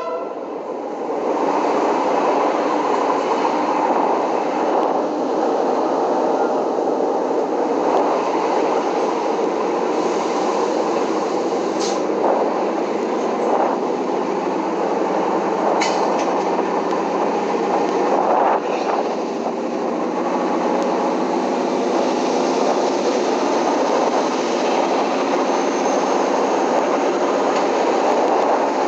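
Train running along the track: a steady rumble and rattle of wheels on rails, with a few sharp clicks scattered through the middle.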